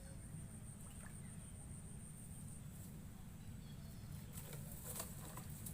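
Faint outdoor ambience: a high, steady insect trill that stops about two and a half seconds in, over a low rumble, with a few faint clicks near the end.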